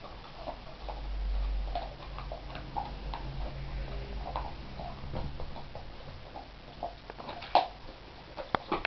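Dogs gnawing and crunching raw pork bones: irregular small clicks and cracks, with a sharp loud crack about seven and a half seconds in and a few more near the end. A low rumble is heard between one and two seconds in.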